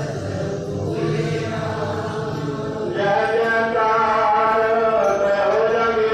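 Sikh devotional chanting with music, a continuous sung line of held and shifting notes that grows louder and higher about three seconds in.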